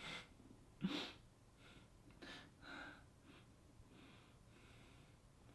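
Near silence with a few faint breaths and sniffs from an upset man, one sharper intake about a second in and two softer ones a little past two seconds.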